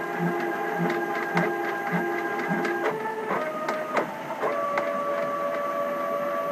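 Stepper motors of a homemade CNC machine, set up as a pen plotter, whining as they drive a marker across paper. Several steady tones change pitch as the moves change. They pulse about twice a second at first, then settle into a steady whine from about two-thirds in.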